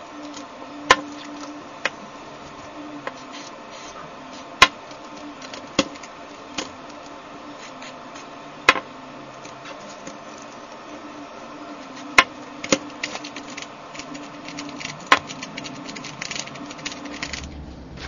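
A DIY type D plastic Rubik's cube is being turned over and over by hand, a steady clicking rattle of its layers with a sharper snap every second or few. The cube has just had Jig-a-loo lubricant sprayed in through two popped edges, and this turning works the lube in.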